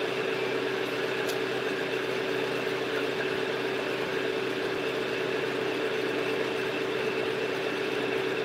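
A steady mechanical hum with a constant tone that does not change, like a motor running in the room.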